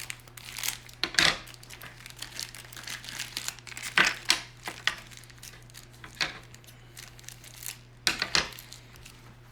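Packaging of a blind mystery pin pack being torn open and crinkled by hand: irregular crackles and rustles, with louder tears about a second in, at about four seconds and around eight seconds.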